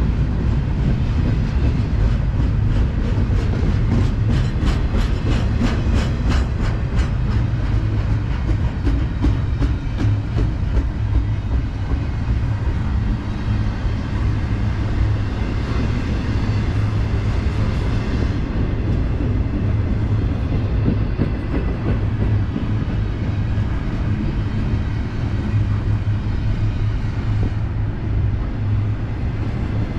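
Double-stack intermodal container well cars of a BNSF freight train rolling past, a steady loud rumble of steel wheels on rail. A quick regular run of clicks comes through between about four and ten seconds in.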